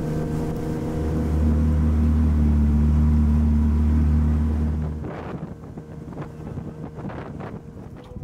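Small fishing boat's motor running with a steady low hum, stopping about five seconds in, followed by wind and water splashing.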